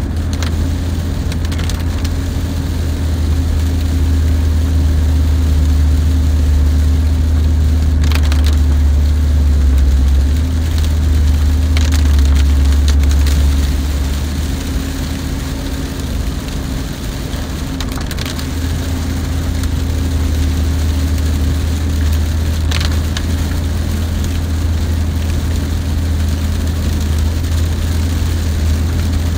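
Steady low drone of a car's engine and tyres on a wet road, heard inside the cabin at about 50 mph, easing off about halfway through. A few brief sharp sounds break in now and then.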